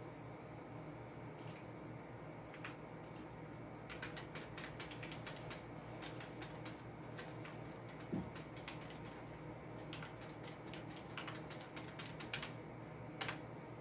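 Computer keyboard keys tapped, with scattered single clicks and a dense run of keystrokes in the middle, over a faint steady low hum. One dull knock about eight seconds in.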